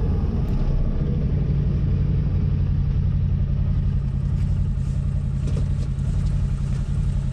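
Engine of a CFMOTO ZFORCE 800 EX side-by-side, an 800 cc V-twin, running with a steady low rumble, heard from the driver's seat of the open cab.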